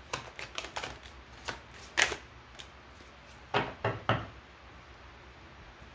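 Tarot cards being handled, making a series of irregular clicks and taps, the loudest about two seconds in and a cluster a little before four seconds.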